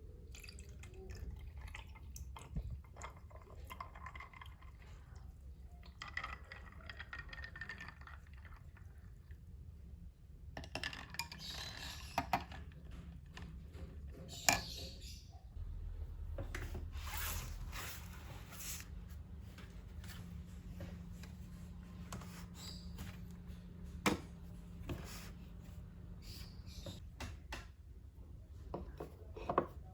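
Small handling sounds: scattered light taps and clicks and a few brief rustles, over a low steady hum.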